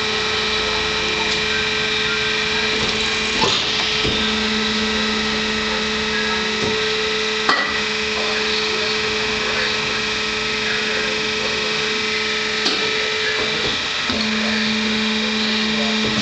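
Cevenini ET8 four-shaft log slitter running, a machine that cuts long rolls into narrow ones: a steady machine hum with two held tones, the lower tone growing stronger about four seconds in and again near the end. A few sharp clicks sound over it.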